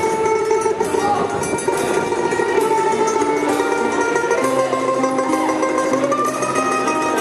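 Live folk band playing: acoustic guitar and mandolin over double bass, with long held melody notes.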